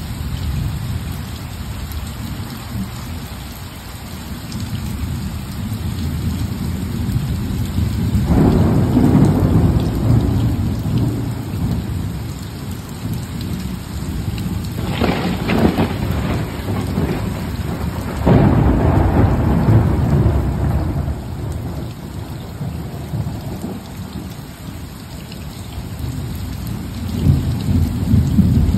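Steady rain falling, with thunder rumbling again and again. A long rumble comes about eight seconds in, a sharper crack about fifteen seconds in, another long rolling rumble soon after, and one more swelling near the end.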